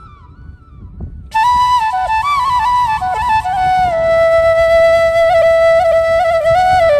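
Background music: a solo flute melody with sliding, ornamented notes. A new phrase comes in about a second in and settles into a long held note near the end.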